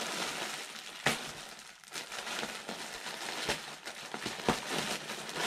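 Plastic mailing bag crinkling and rustling as it is handled and opened, with a few sharp crackles.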